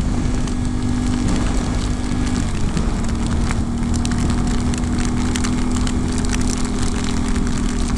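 Yamaha Ténéré 700 parallel-twin engine running steadily under way, its tone shifting slightly about two seconds in, with many small sharp ticks of rain hitting.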